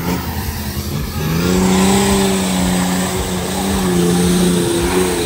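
An off-road vehicle's engine revs up about a second in and is held at high revs, pulling hard on a wet, muddy forest track.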